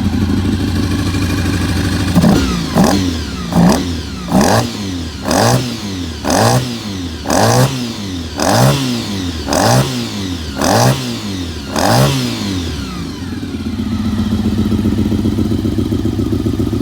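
Honda RC45's 750 cc V4 engine, running again after a long lay-up, idling and then blipped about ten times in quick succession, roughly once a second, before settling back to a steady idle.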